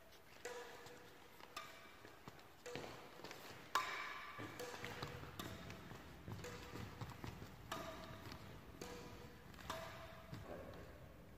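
Badminton racket strings striking a shuttlecock again and again, a short ringing ping about once a second, with echo from the hall.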